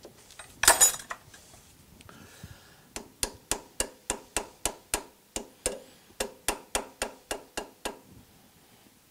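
Metal-on-metal hand work on a lathe's dog-and-arbor setup as it is snugged tight: a short clatter about a second in, then a steady run of about twenty sharp metallic clicks, about four a second, stopping near the end.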